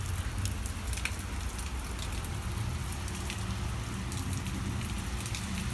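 Steady rain falling, with many small drops ticking and pattering, and water dripping from a clogged rain gutter that needs cleaning out.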